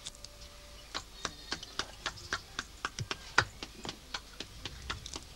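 Fresh green bean pods being snapped and split open by hand to shell the beans: a quick run of sharp, crisp clicks, about three or four a second.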